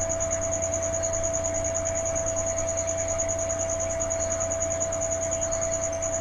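A cricket's continuous high-pitched trill, pulsing rapidly and evenly, over a low steady hum and a constant mid-pitched tone.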